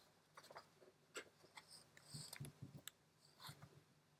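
Near silence, with a few faint scattered clicks and light rustles of a paper print being handled.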